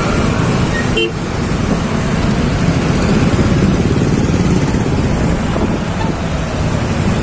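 Motorbike engine running while riding slowly through heavy road traffic, with steady road and traffic noise, and a brief click about a second in.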